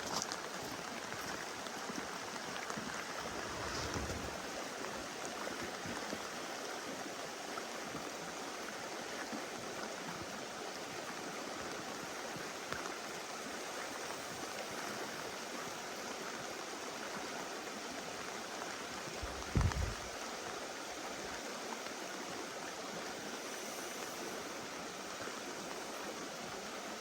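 River water rushing steadily. A brief low thump comes about two-thirds of the way through.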